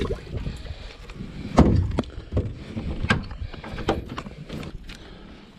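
Irregular knocks and clicks of gear being handled on a fishing boat's deck, over a low rumble; the loudest knock comes about a second and a half in.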